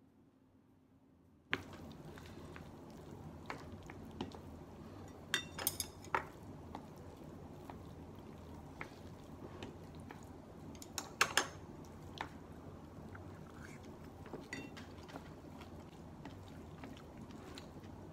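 Wooden spoon and chopsticks clinking and scraping against a ceramic bowl as curry rice is stirred and mixed, with a cluster of clicks about five seconds in and another about eleven seconds in. Near silence for the first second and a half, then a steady low room hum.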